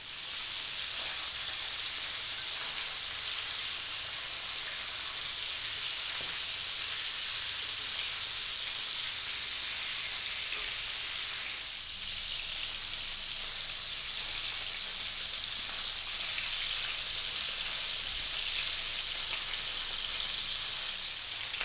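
Chicken legs frying in olive oil in a pan, a steady even sizzle with a slight brief dip about halfway through.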